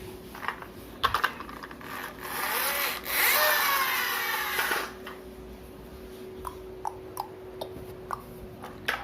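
Toy jeep being run along, its wheels giving a loud rasping whirr for about two and a half seconds, starting about two seconds in, with light clicks and knocks of the plastic toy before and after.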